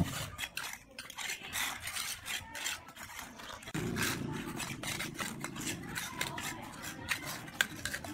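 Steel mason's trowel scraping and tapping wet mortar on the top course of hollow clay bricks, in many short, irregular strokes.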